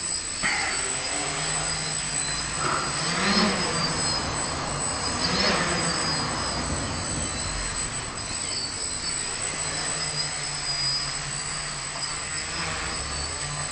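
DJI Flame Wheel quadcopter's electric motors and propellers running with a steady hum, revving up and back down twice, about three and five and a half seconds in.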